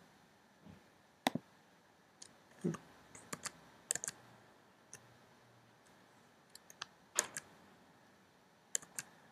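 Scattered computer keyboard keystrokes and mouse clicks: about ten sharp, separate clicks at irregular gaps.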